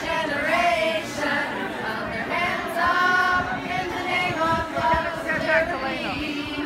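A group of women singing together without accompaniment, holding long notes.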